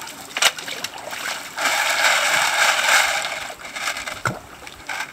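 A shovelful of wet creek gravel tipped into a plastic bucket: water pours and splashes and stones rattle for over a second, about a third of the way in. A few clicks and one sharp knock of stone on stone or shovel on bucket follow near the end.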